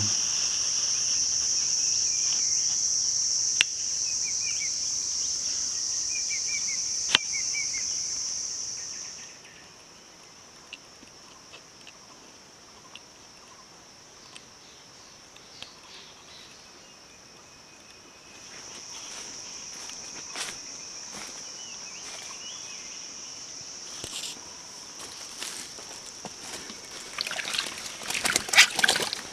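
Steady high-pitched insect drone that stops about 9 s in and starts again about 18 s in. Near the end, close rustling and clicks of handling.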